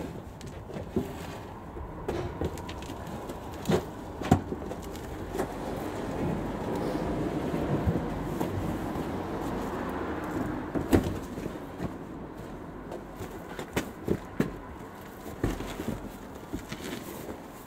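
Large plastic wheeled bin rolled across a concrete barn floor: its casters rumble, louder in the middle stretch, with scattered knocks and clatters from the bin and wheels.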